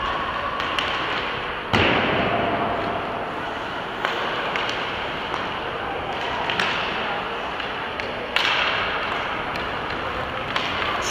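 Ice hockey game on a rink: steady scrape and hiss of skates on the ice with stick and puck clicks, and two loud knocks, about two seconds in and again near eight seconds, that ring out briefly.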